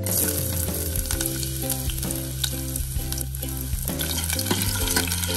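Ginger and garlic slices dropped into hot cooking oil in a stainless steel saucepan, sizzling at once as they hit and then frying steadily as a metal ladle stirs them.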